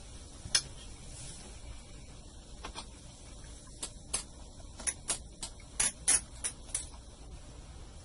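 Light, sharp clicks and taps of a small precision screwdriver and fingers on the plastic underside of an HP ProBook 4420s laptop as its screws are worked out. One click comes about half a second in, then a quick irregular run of about ten clicks in the second half.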